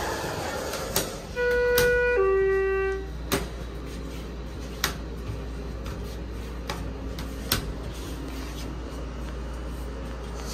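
Schindler 330A elevator's arrival chime: two notes about a second and a half in, the second lower, followed by a few sharp clicks and a low steady hum as the car stands at the floor and the doors open.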